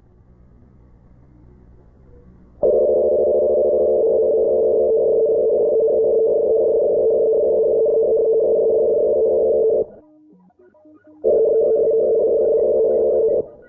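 Slovenian emergency alert system alarm tone, slowed down. A steady tone starts suddenly near the three-second mark and holds for about seven seconds. It breaks off for just over a second, then sounds again for about two seconds.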